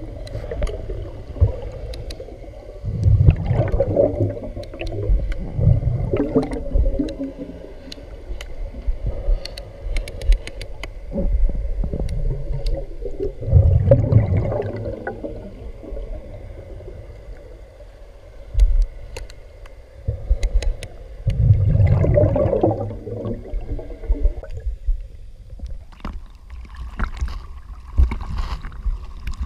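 Diver's breathing underwater: gurgling rushes of bubbles every several seconds, over a constant low rumble of water against the camera housing, with scattered clicks. The water sloshes loudly as the diver breaks the surface at the very end.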